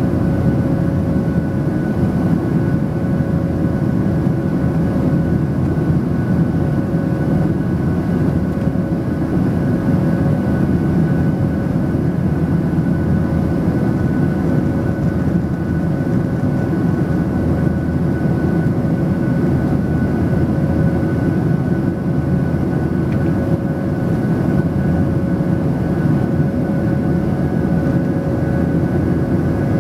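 Steady cabin noise of a Boeing 737-800 climbing out, heard from a seat over the wing: the drone of its CFM56-7B turbofan engines and rushing air, with two steady whining tones, one mid-pitched and one higher, on top.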